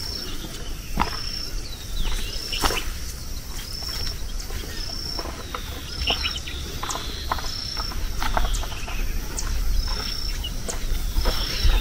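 Outdoor ambience of insects and birds: a high, short note repeating about once a second, some followed by a falling call, with scattered chirps and clicks.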